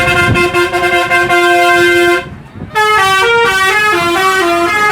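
Bus basuri (telolet) multi-tone musical horn: a chord of several horn notes held for about two seconds, a brief break, then a quick stepping tune of changing notes.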